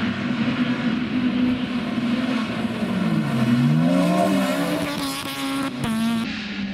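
Honda Civic Type-R R3C rally car engine running hard at a steady pitch. About three seconds in the revs drop and then climb again as the car lifts and accelerates, and they waver quickly near the end.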